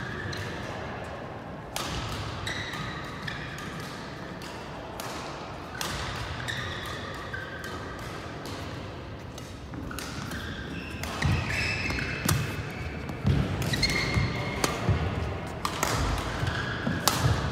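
Badminton rackets striking shuttlecocks in a rally, a string of sharp, irregular pops, with sports shoes squeaking and thudding on the rubber court mat. The hits and footwork get busier and louder in the second half.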